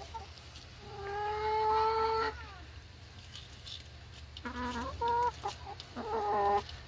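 Brown hen calling: one long drawn-out call about a second in, then a few short clucks near the end.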